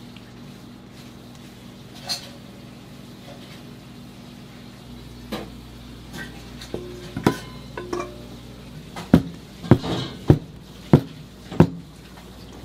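Batter being poured and scraped out of a stainless-steel mixing bowl into round cake pans with a silicone spatula, with a few scattered clinks of bowl and pans. Near the end come five sharp knocks about half a second apart, the loudest sounds.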